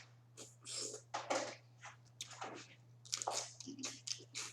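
A person eating crawfish close to the microphone: chewing and mouth smacks in many short, irregular bursts, over a steady low hum.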